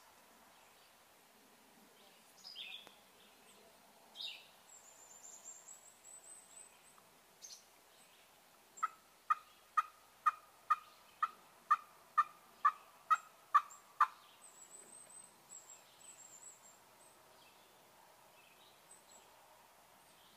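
A turkey yelping: a run of about a dozen short, evenly spaced notes, a little over two a second, growing louder toward the end, in the middle of the stretch.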